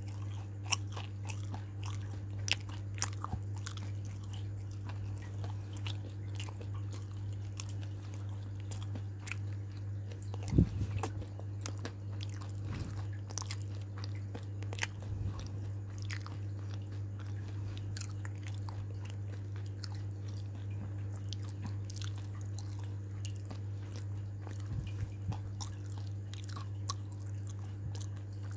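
Close-up chewing and biting of crunchy fried food, with crisp crackles throughout and one louder knock about ten seconds in, over a steady low hum.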